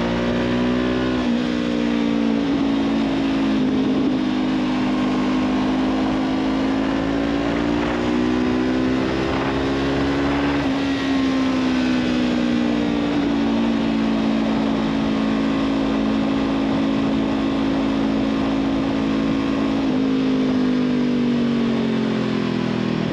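Honda CB500F parallel-twin engine running through a Black Widow aftermarket exhaust with a stainless oval, carbon-tipped silencer, the bike under way. The exhaust note climbs slowly, drops sharply about eleven seconds in, holds steady, then dips and rises again near the end.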